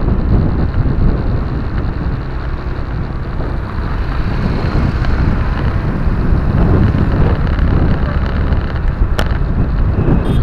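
Steady low road rumble of a moving car heard from inside the cabin, tyres and engine running at road speed, with buffeting noise on the microphone. There is one sharp click about nine seconds in.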